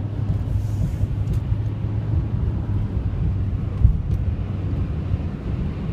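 Car driving along: a steady low rumble of engine and tyres, with a single short thump a little under four seconds in.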